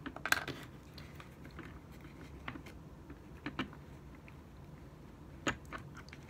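Faint clicks, taps and scratches of hands working on a puppet head and its golf tees: a short crackly cluster near the start, then single clicks every second or so.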